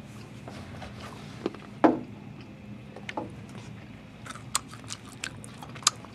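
A person biting and chewing food close to the microphone, with scattered small crunching clicks that come more often in the second half.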